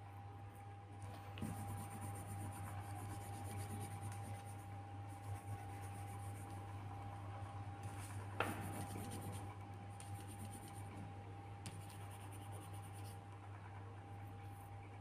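A drawing tool scratching on paper in strokes that come in stretches of a second or two, with one sharp tap a little past halfway. A steady low hum lies under it.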